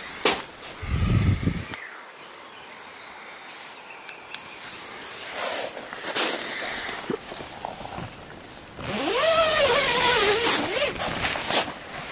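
Rustling and handling noises inside a nylon tent, with a low thump about a second in. Near the end comes a drawn-out pitched sound that rises, wavers and falls for about two seconds.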